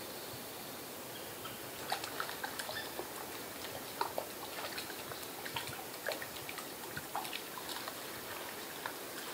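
A squirrel chewing: a run of irregular small cracks and clicks that starts about two seconds in and keeps on at an uneven pace.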